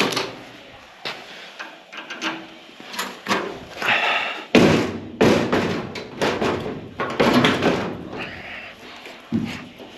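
A run of knocks, thumps and clatter, about ten in all, the loudest about four and a half seconds in, from work on a Renault Estafette van's door and steel body panels.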